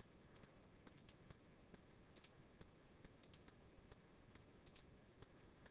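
Near silence, with faint, irregular clicks of a computer mouse.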